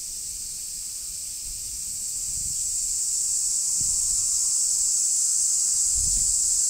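A steady high-pitched hiss that swells louder about two seconds in, with a few brief low rumbles underneath.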